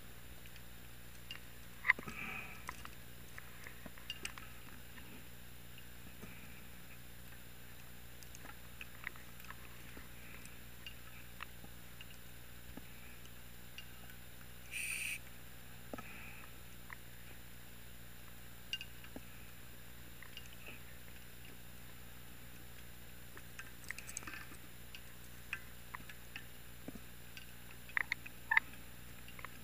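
Underwater sound of a scuba dive picked up by the camera: scattered sharp clicks and ticks from diving gear over a steady low hum, with one brief hiss about halfway through.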